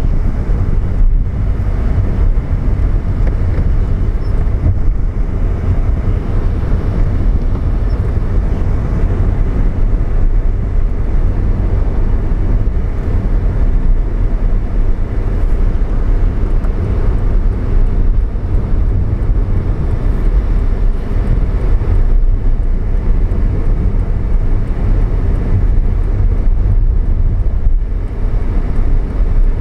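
Car driving along a city street: steady engine and road rumble, heard from inside the moving car.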